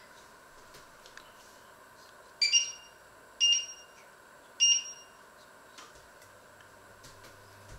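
Touch controls of an electric glass-ceramic hob beeping three times as a finger presses them: short high beeps about a second apart.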